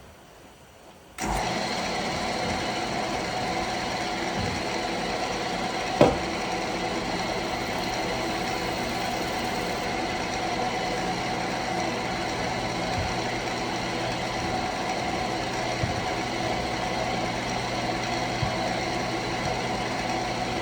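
Wood lathe switched on about a second in and running steadily with a motor hum, turning a wooden bowl blank. A single sharp knock about six seconds in.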